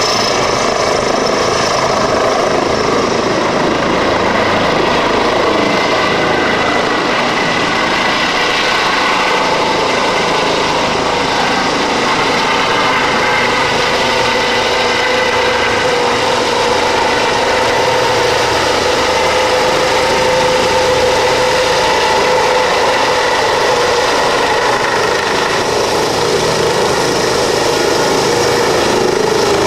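Eurocopter EC-135 helicopter running: steady turbine and rotor noise with several high whining tones over it.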